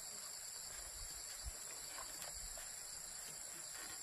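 A steady chorus of insects chirring in high-pitched bands, with a faint low thump about one and a half seconds in.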